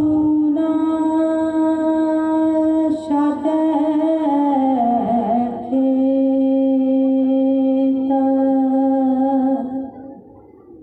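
A voice singing a slow melody in long held notes, dropping to a lower note about five seconds in and stopping about ten seconds in.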